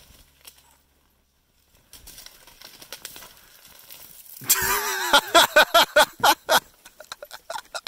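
Snowshoes and trekking poles crunching and squeaking in deep snow, with a quick run of loud crunches starting about halfway through.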